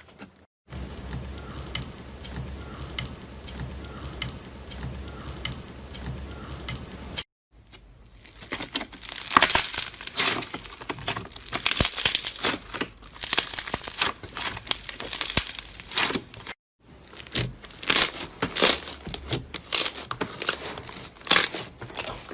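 Slime being squeezed and worked by hand, giving dense, uneven crackling and crinkling in quick bursts, in clips cut together. The first few seconds hold only a faint low hum with light clicks before the loud crackling starts.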